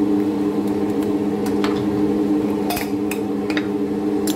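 A steady low machine hum from a running kitchen appliance. Over it come several light clicks and knocks of spice containers and a spoon being handled on the counter.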